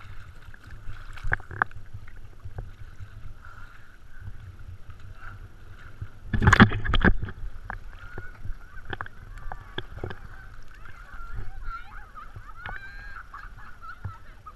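Snorkeler breathing through a snorkel tube with honking, wheezy breaths, heard through a waterproof action camera at the water's surface, with water slapping against the housing and one loud splash about six and a half seconds in.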